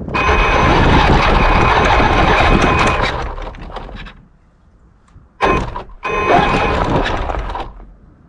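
Traxxas X-Maxx electric RC monster truck driving in bursts on the throttle, heard from on board: brushless motor and drivetrain whine with the studded tires and plow blade crunching over packed snow and ice. There is one long burst that fades out partway through, a short blip, then another burst.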